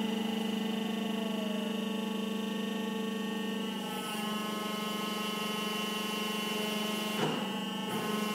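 Hydraulic power unit of a Rotek Pile Turner 900 running with a steady hum while the turner's frame rotates back upright. The tone shifts slightly about four seconds in, and a short knock comes about seven seconds in.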